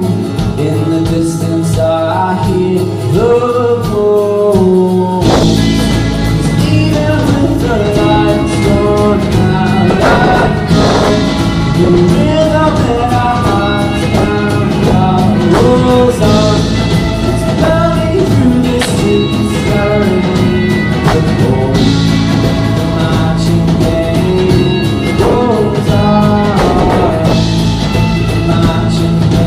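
A live band playing an indie-folk song with a sung lead vocal over guitar. About five seconds in the band comes in fuller with a heavy low end, and a bright cymbal-like wash recurs every five or six seconds after that.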